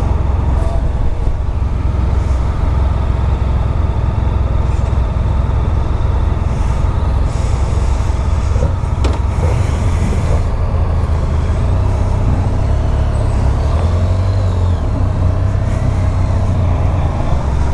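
Motorcycle riding along, heard from a camera mounted on the bike: the engine running under a steady, loud low rumble of wind on the microphone.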